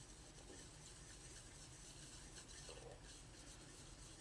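Near silence, with faint soft rubbing of a metal palette knife mixing oil paint on a palette.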